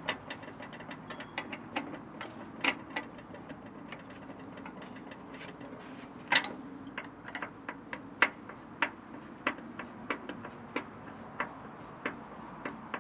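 Irregular sharp clicks and taps of hand tools on a cordless circular saw's plastic housing as a screwdriver works at its screws during disassembly.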